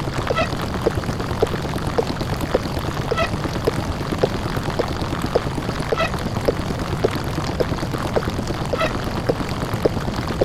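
A heavily distorted, 'deep-fried' microwave-oven sound effect: a loud, harsh droning hum with crackling clicks several times a second and a short higher chirp about every three seconds.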